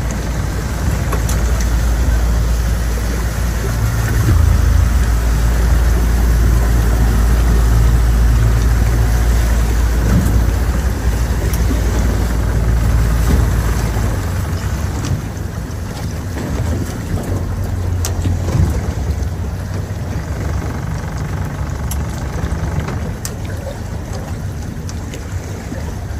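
Boat motor running at a low idle, a steady low rumble that eases a little about halfway through.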